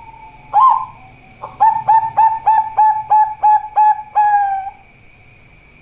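A Bangkok-strain zebra dove (perkutut) singing its cooing song: one opening note, then a quick run of about eight short, evenly spaced coos ending in a longer drawn-out final note.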